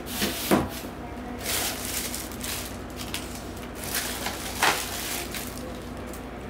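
Clear plastic packaging bag crinkling and rustling as a bagged monitor panel and its stand are handled on a desk, in several separate bursts with the loudest about half a second in and just before five seconds.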